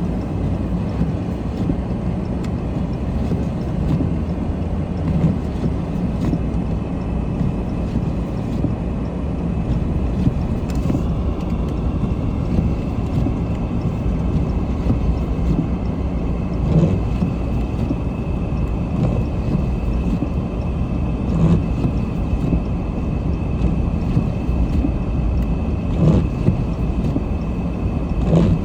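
Car driving slowly on a snow-covered road: a steady low rumble of engine and tyres, heard from inside the car. A faint high whine sets in about ten seconds in, and there are a few soft thumps in the second half.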